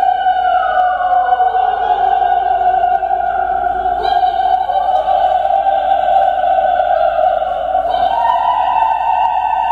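Two voices in an improvised vocal duet, singing long held notes: one holds steady while the other glides slowly downward over the first few seconds, and both shift to new pitches about four seconds in and again near the end.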